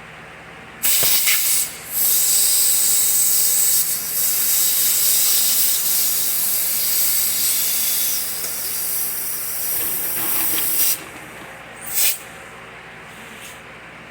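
Compressed-air blow gun blowing through a small-engine carburetor's passages to clear them: a short burst about a second in, then a long steady hiss of about nine seconds, and one more short burst near the end.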